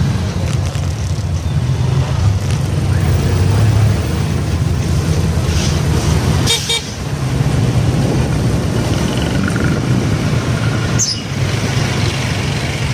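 Motorcycle engine running while riding through traffic, with a brief horn toot about six and a half seconds in.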